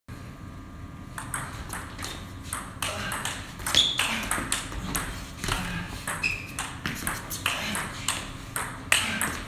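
Table tennis rally: a quick run of sharp clicks, about two a second, as the ball is struck by the rubber-faced bats and bounces on the table. A couple of short squeaks sound in the middle.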